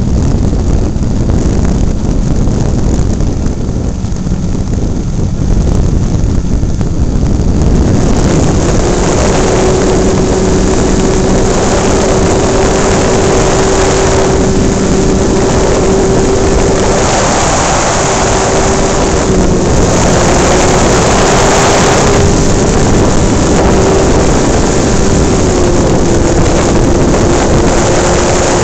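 Wind rushing over a camera mounted on a radio-controlled model airplane in flight, with the plane's motor running underneath; about eight seconds in the motor's note steps up in pitch and holds steady, wavering slightly, as the throttle opens.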